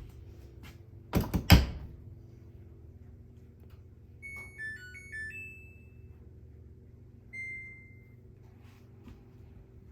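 A few heavy thuds about a second in, like a door being shut, then a Samsung FlexWash washing machine's electronic chime plays a short stepping melody, followed a couple of seconds later by a single held beep. A low steady hum runs underneath.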